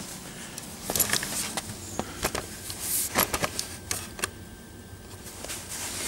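Camera handling noise as the camera is picked up and repositioned: a string of light clicks and knocks, most of them between about one and four seconds in.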